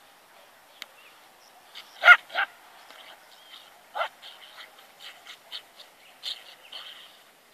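Small dog barking in short barks: two loud ones about two seconds in, another near four seconds, then a string of quicker, fainter barks.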